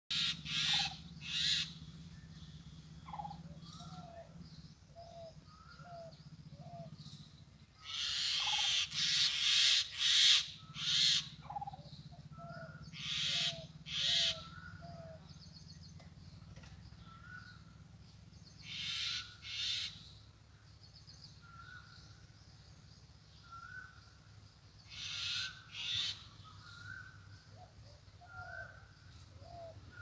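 Birds calling in a tree: loud, harsh, scratchy calls in short clusters, several runs of two to four, with soft short falling notes and brief higher notes repeated in the gaps between them.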